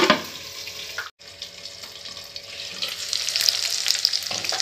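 A glass lid is set down on a kadai of onions frying in oil with a clink, and the sizzle goes muffled and quieter under it. About a second in the sound cuts out for an instant, then open-pan sizzling comes back and grows louder.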